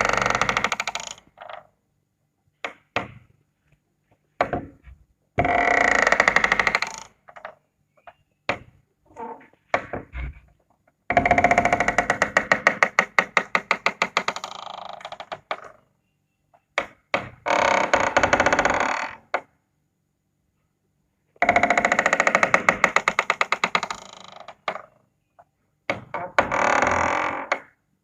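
A series of doors opening, one after another: six drawn-out sounds of one to three seconds, several with a fast stuttering pulse, with short clicks and knocks in the gaps between them.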